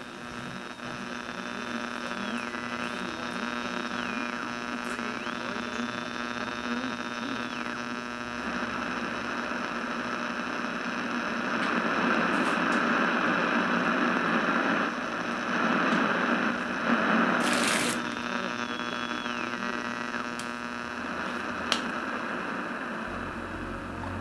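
A steady electrical buzzing hum with many overtones, joined by a hiss that builds and grows louder past the middle. A high tone drops and climbs back several times, a short burst of hiss comes about three-quarters in, and a single sharp click sounds near the end.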